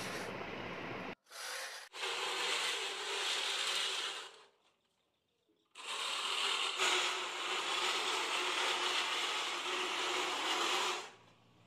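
Manual push reel mower running as it is pushed across a lawn, its spinning blade reel cutting grass with a steady mechanical noise. The noise breaks off briefly about a second in and drops out for about a second in the middle.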